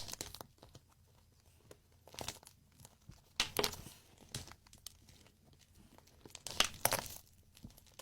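Wax coating on a squishy toy cracking as it is squeezed: several short bursts of crisp crackling and crinkling with quiet gaps between them.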